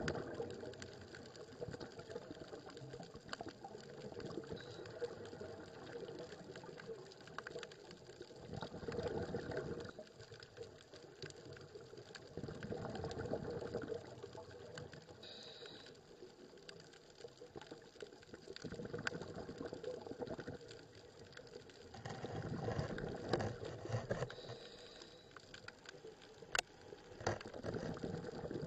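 Underwater sound of a scuba diver's breathing: bursts of exhaled bubbles from the regulator swell up every four to five seconds over a steady underwater hiss.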